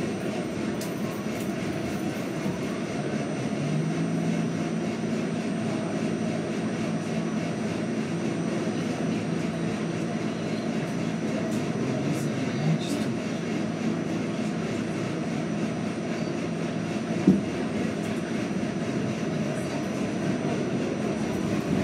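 R68 subway car running through the tunnel, heard from inside the car: a steady rumble from the wheels and running gear. A steady low hum sits over the rumble from about three seconds in until about seventeen seconds, and a single sharp knock comes just after it ends.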